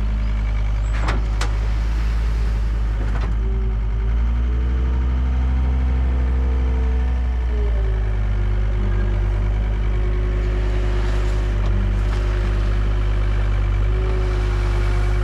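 Excavator diesel engine running steadily. From about four seconds in, the engine rises in pitch for a few seconds and then settles back. There are a few sharp clanks in the first few seconds.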